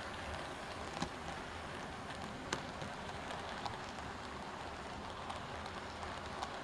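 00 gauge model trains running on the layout track: a steady rumble of wheels and motors with a few sharp clicks.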